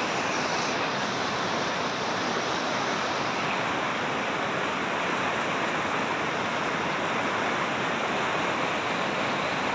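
Muddy floodwater of a river in spate rushing and churning past, a steady rush of water.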